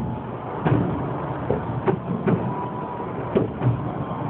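Fireworks shells bursting in irregular quick succession, several sharp bangs within a few seconds over a steady low rumble of further explosions.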